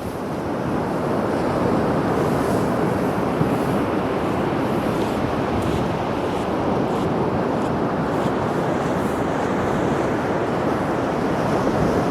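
Sea surf washing onto the shore: a continuous rush of breaking waves that swells up over the first second or two, then holds steady.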